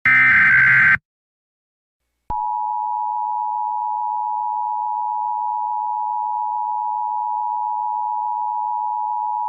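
Emergency Alert System alert opening: the last of three short SAME header data bursts, about a second long, then after a second of silence the EAS attention signal begins, a steady dual-tone beep held unchanged for the rest. It signals that an emergency message is about to be read.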